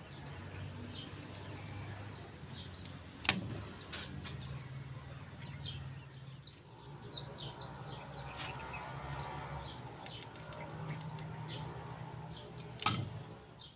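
Small birds chirping in quick falling notes throughout, with two sharp snaps, one about three seconds in and one near the end, from shots of a mini popsicle-stick compound bow.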